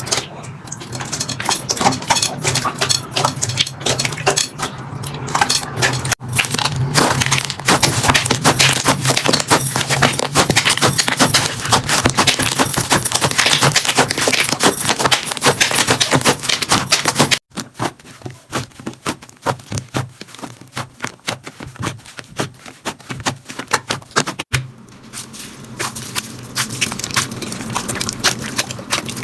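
Slime being squeezed, poked and stretched by hand, with dense crackling and popping. It comes in several separate takes that cut sharply about 6, 17 and 24 seconds in, and the one between about 17 and 24 seconds is quieter.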